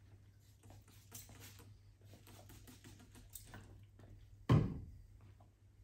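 A hand-held spray bottle misting hair in a few short, faint hisses. A single loud thump comes about four and a half seconds in.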